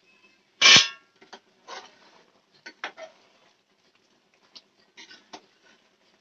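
A metal ladle clangs loudly against a metal cooking pot about a second in and rings briefly, then knocks and scrapes against the pot a few more times while thick mutton curry is stirred.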